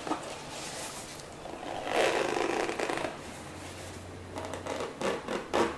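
Zipper on a padded fabric singing-bowl case being worked, a rasping pull about two seconds in, followed by a run of light clicks and scrapes of the case being handled near the end.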